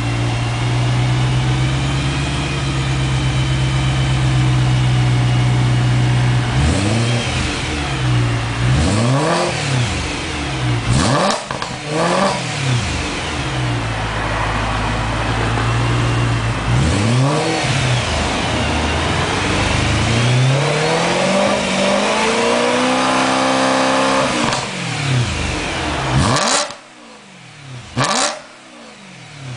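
2008 BMW E92 M3's 4.0-litre V8 through an Active Autowerk X-pipe and Dinan exhaust, idling steadily for several seconds, then blipped through a series of short revs and one longer climb and fall in revs. Near the end come two short loud bursts.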